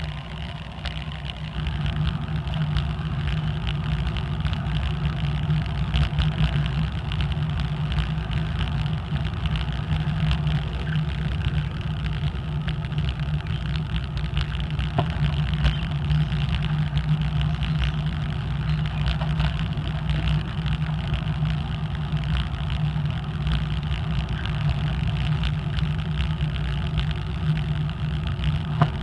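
Bicycle riding along a paved trail: a steady low rumble of wind on the handlebar-mounted microphone, with tyre noise on the asphalt.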